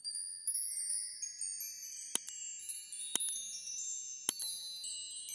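Sparkling chime sound effect: many high ringing tones overlapping like a wind chime. Three sharp mouse clicks, about a second apart, fall in the middle of it.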